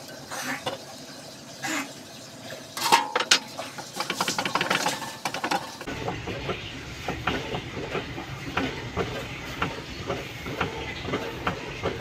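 Diesel injector nozzle from a Komatsu 3D84 engine on a hand-lever pop tester. First come metal clinks and a quick run of sharp clicks as it is handled on the fitting. About halfway through, the tester lever is pumped over and over, and the nozzle fires repeated short hissing spurts of fuel: the injector's spray and opening pressure being tested.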